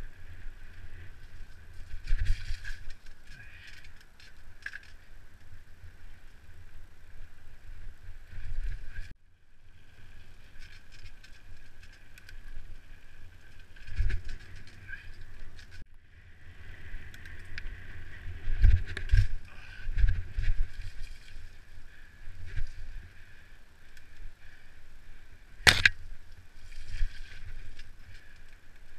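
Mountain bike rolling over a bumpy dirt singletrack: irregular thuds and rattles of the bike over roots and ruts under a steady hiss, with one sharp click near the end.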